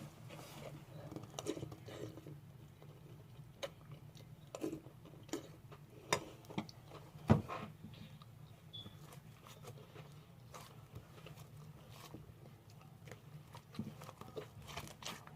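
Slime being squished and stretched by hand, giving irregular small clicks and pops, with one sharper pop about seven seconds in.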